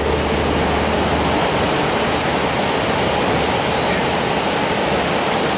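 Steady rush of river water. A low hum fades out about a second and a half in.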